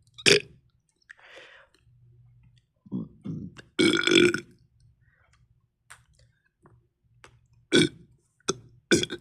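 A person belching repeatedly: a short burp right at the start, a longer pitched burp about four seconds in, and more short burps near the end, with faint clicks in between.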